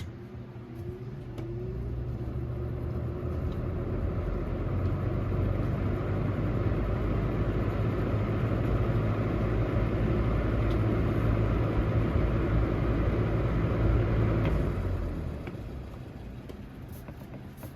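Lasko 3723 box fan started on its low setting: a click, a rising whine as the motor spins up, then a steady rush of air over a motor hum that dies down near the end.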